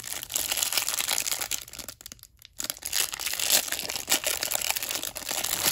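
Clear plastic wrapper crinkling and tearing as it is peeled off a stack of trading cards, with a short pause about two seconds in.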